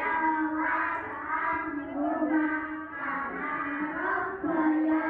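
A group of young children singing together in unison, with long held notes.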